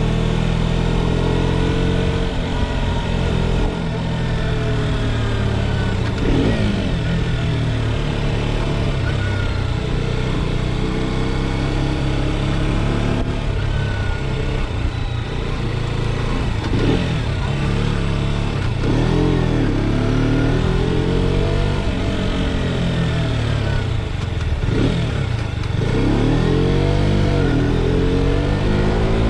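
KTM RC 390's single-cylinder engine and exhaust running, the revs rising and falling again and again, more often in the second half.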